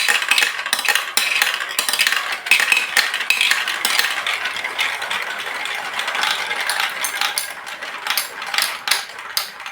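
Many marbles rolling and clattering down a plastic Lego Duplo block track: a dense, continuous rattle of clicks that cuts off suddenly.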